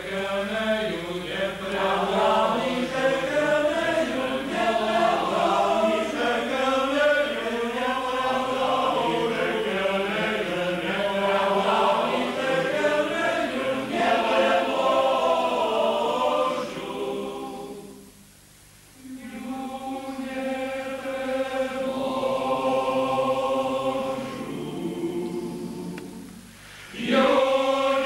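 A men's choir of priests singing a song together, pausing briefly between phrases about two-thirds of the way through and again near the end before going on.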